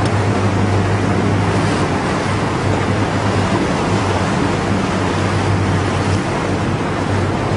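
Motorboat underway: a steady low engine hum under a constant rush of water and wind on the microphone.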